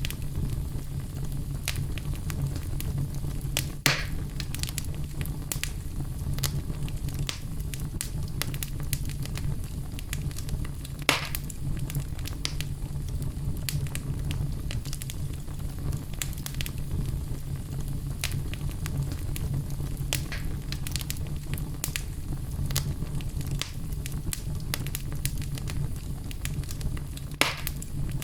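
Fireplace wood fire burning: a steady low rumble with many small crackles, and three louder pops spread through.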